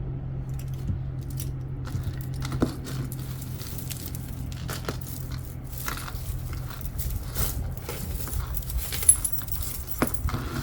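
Jewelry being handled and sorted: metal chains, beads and pins clinking and rustling in a series of small irregular clicks, over a steady low hum.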